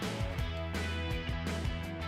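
Background music with a steady beat, guitar and drums.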